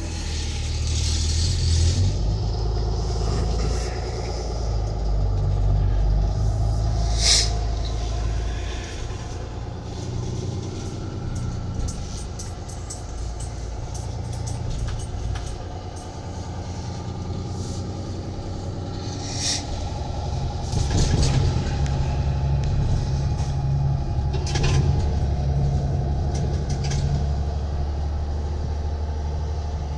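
Peterbilt 337 tow truck's diesel engine pulling steadily as the truck drives, heard from inside the cab, its note shifting about two-thirds of the way through. Two short clicks sound over it, one about a quarter of the way in and one about two-thirds in.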